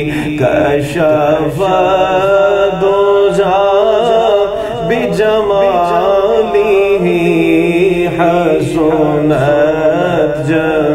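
A man singing a naat, an Urdu devotional poem praising the Prophet, in long, drawn-out, wavering notes.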